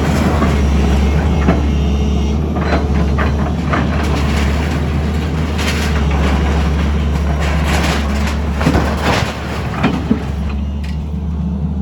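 A heavy engine runs steadily, as from demolition machinery, with repeated knocks and crunching noises between about two and ten seconds in.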